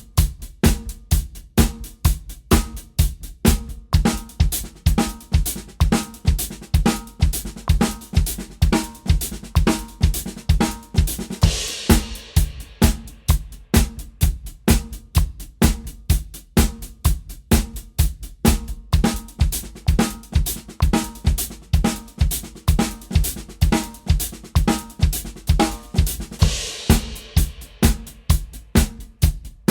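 Drum kit playing a paradiddle pattern as steady 16th notes across snare, hi-hat and bass drum, with a cymbal crash twice, about fifteen seconds apart.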